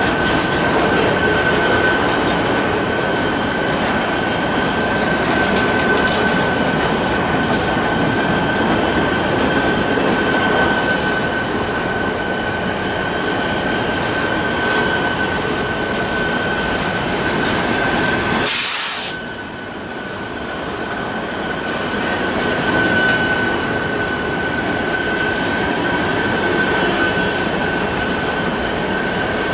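Long freight train rolling past, its wheels rumbling and clacking on the rails with a steady high-pitched wheel squeal. A brief hiss about two-thirds of the way through, followed by a short dip in the rumble.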